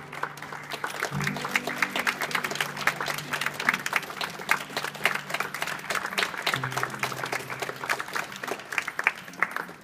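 Audience applauding over background music, dense claps throughout. Under the claps the music plays held low notes, with a new note coming in about a second in and again near seven seconds.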